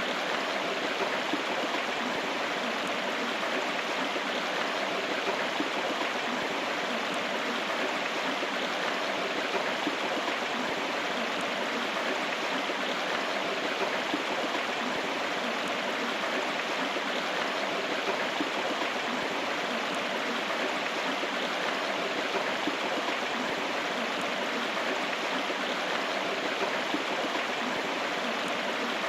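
River water flowing steadily, an even, unbroken water sound.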